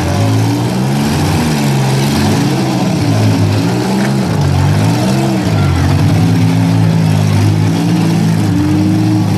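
Six-cylinder demolition derby car engines revving hard, the pitch rising and falling over and over, as the cars push against each other.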